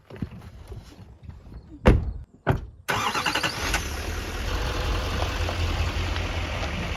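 Two sharp thumps about a second apart, then a vehicle's engine noise that starts suddenly and runs on as a steady low rumble.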